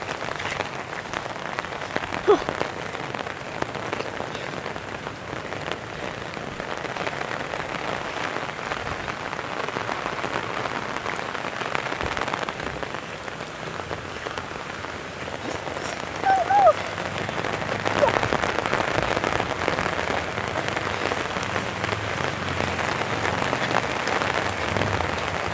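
Steady rain falling and pattering on surfaces in a dense, even hiss, broken twice by a brief short pitched sound, about two seconds in and again about sixteen seconds in.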